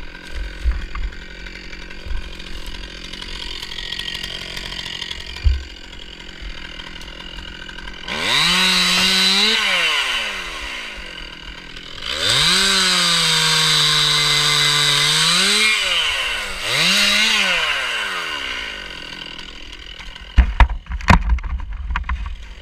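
Stihl MS 261 two-stroke chainsaw idling, then revved up three times: a rise held for about two seconds, a longer one of about four seconds, then a short blip, each falling back to idle. Near the end come several sharp knocks.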